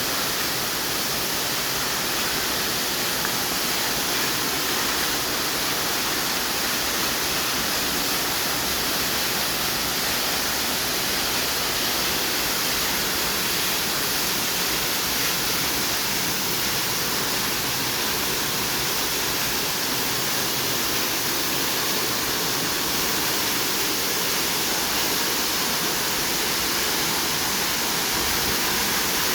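Waterfall: falling water making a steady, even rushing noise that stays at the same level throughout.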